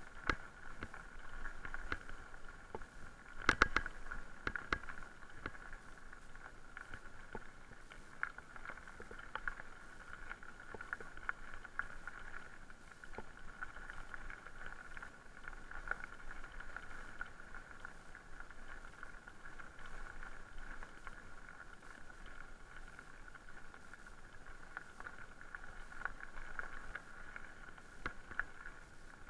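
Electric mountain bike rolling along a gravel track: steady tyre noise on the gravel with a steady whine, scattered clicks and rattles from the bike, and a sharp clatter of knocks about three and a half seconds in.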